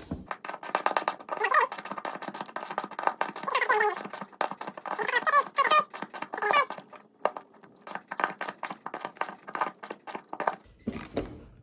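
Ratchet wrench with a 1/2 inch socket clicking in quick runs as it is worked back and forth, tightening a Swage-It hand swaging tool to crimp a sleeve onto stainless lifeline wire. A few short, wavering squeals are mixed in.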